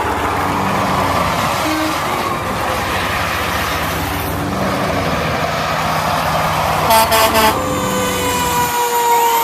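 Heavy vehicle engine noise with a short series of horn toots about seven seconds in, then a long, slightly falling horn blast near the end.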